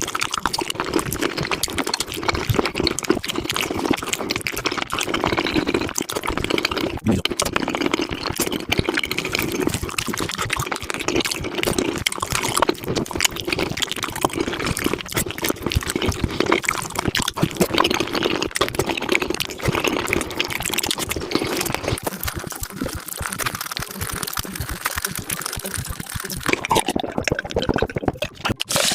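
Wet, sticky chewing and smacking of spicy Korean-style beef feet, close-miked and played at high speed, so the mouth sounds run together into a dense stream of quick wet clicks.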